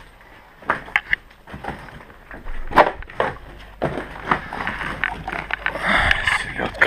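Irregular knocks, clicks and scrapes with rustling, the sound of someone moving about and rummaging through things while searching, busier near the end.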